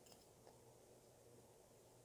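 Near silence: room tone with a couple of faint ticks.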